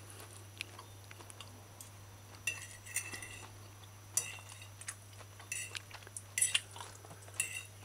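A metal fork scraping and clinking against a ceramic plate as potato salad is scooped up: about half a dozen short strokes, over a low steady hum.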